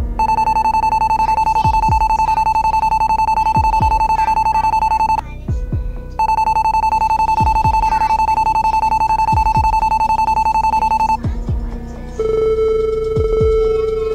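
Loud electronic beep tones: a high steady tone held for about five seconds, broken off for a second, held again for about five seconds, then a lower tone from near the end. Deep drum hits that drop in pitch sound underneath.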